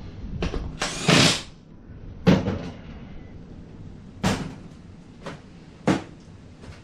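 A series of about six separate knocks and clunks, a second or so apart, as car-seat parts are handled and fitted back together; the loudest is a sharp hit just over two seconds in.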